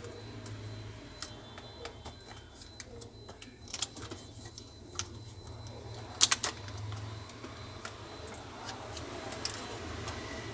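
Scattered light clicks and taps from handling laptop parts and tools on a workbench, with a sharper double click about six seconds in, over a steady low hum.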